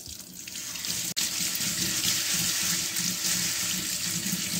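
Tap water running onto lentils in a fine mesh strainer and splashing into a stainless steel sink as they are rinsed; a steady rush that builds up over the first second.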